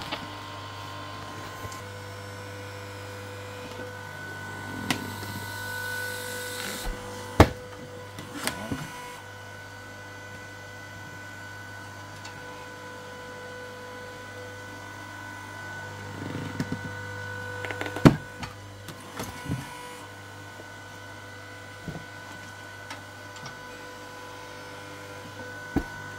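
Log splitter's motor running with a steady hum while it presses a wooden block against a tyre to break the bead off the rim. Sharp knocks come about seven seconds in and about eighteen seconds in, with smaller clatters between.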